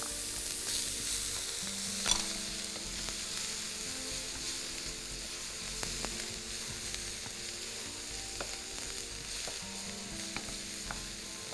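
Onions frying in butter and oil in a pan, a steady sizzle with a few clicks of stirring, as they are browned toward a caramel colour for a brown sauce.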